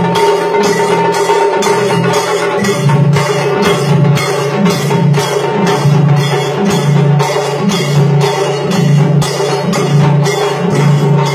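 Live tassa drumming: tassa drums and a large bass drum played together in a loud, fast, steady rhythm.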